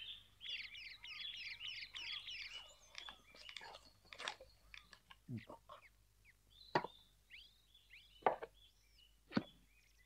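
Small birds chirping in quick repeated high calls that thin out after about three seconds, followed by a few scattered light clicks and knocks of chopsticks and bowls as two people eat.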